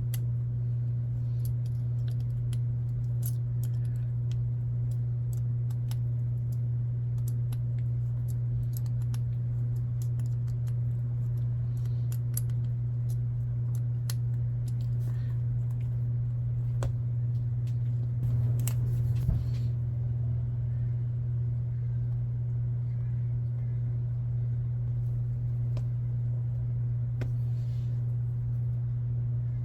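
Small metal clicks and ticks of a hex driver and tiny screws as the beadlock ring screws of an RC crawler wheel are tightened one by one, over a steady low hum. A short burst of louder handling noise comes about two thirds of the way through.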